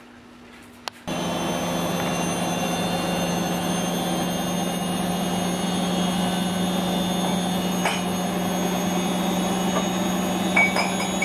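Oven running with its fan on: a steady motor hum with a few fixed whining tones, starting suddenly about a second in after a small click.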